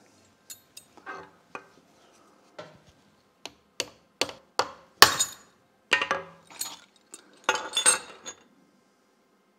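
A hammer tapping a steel drift wedge through the slot of a drill press spindle to knock the Morse taper No. 3 arbor loose: about a dozen sharp metallic taps, growing harder, the loudest about halfway through. Near the end comes a quick run of metallic clinks as the chuck and arbor come free.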